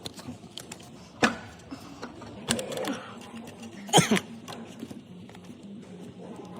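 Tools and parts being handled during work in a car's engine bay: scattered sharp knocks and small clicks, the loudest about four seconds in.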